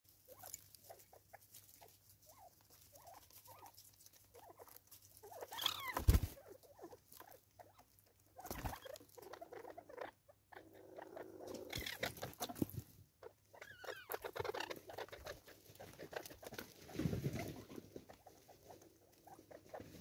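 Francolins foraging at a seed feeder: irregular light patter and pecking of feet and bills, with a few soft clucks and chirps. A dull thump about six seconds in, and another a couple of seconds later.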